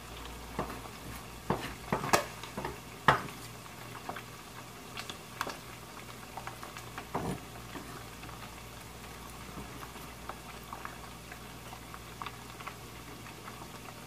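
Chef's knife scraping and tapping on a wooden cutting board as minced onion is gathered up: irregular knocks and scrapes, the loudest clustered about two to three seconds in, then sparser light taps.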